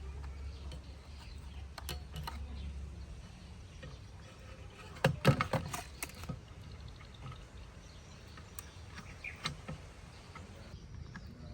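Scattered clicks and knocks of hand-work, with a quick run of louder knocks about five seconds in and another single knock later. A low steady hum runs through the first few seconds, then stops.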